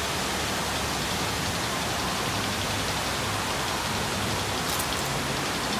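Steady rush of water running down a log flume ride's steep drop chute, an even hiss like heavy rain.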